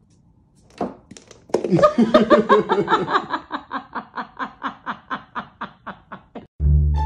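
A person laughing: after a short click, a long run of rhythmic laughing bursts, about four a second, that slowly fade away.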